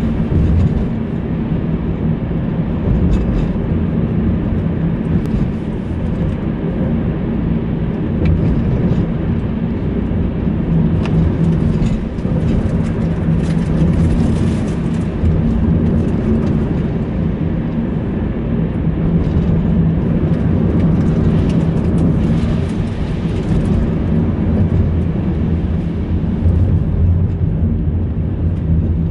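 Car driving through a road tunnel: a steady low engine and tyre drone that keeps up throughout.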